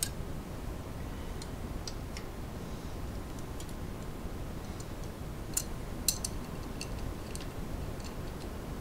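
Scattered light metallic clicks and ticks of a wrench and hub parts on a bicycle rear hub axle as a lock nut is put on and a wrench fitted to it. The clicks come irregularly, one or two a second, with a couple of sharper ones a little past the middle, over a steady low hiss.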